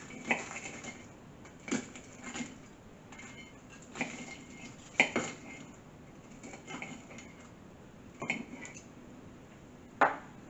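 A table knife cutting through batter-fried porgy in a ceramic dish: the blade clinks and scrapes against the dish in about eight irregular sharp knocks, the loudest about halfway through and near the end.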